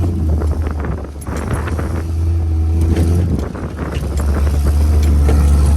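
Jeep CJ7 engine running with a low steady drone, its note shifting slightly about three seconds in.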